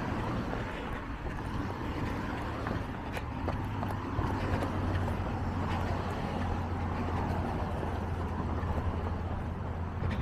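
Road traffic: cars driving past on a street, a steady rumble of engines and tyres that swells a little in the middle.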